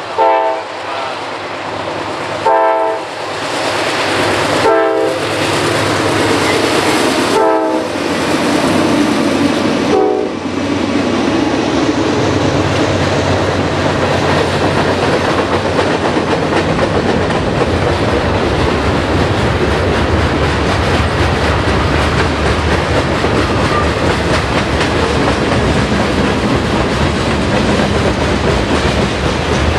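Diesel freight locomotive's air horn sounds five short blasts in the first ten seconds as the train approaches. The horn then stops, and the freight cars roll past with a steady rumble and the clickety-clack of wheels over rail joints.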